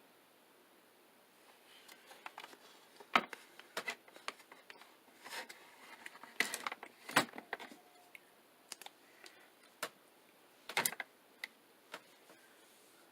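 Small hard plastic makeup items being handled: irregular clicks, taps and light rustling, with the sharpest clicks about three, seven and eleven seconds in.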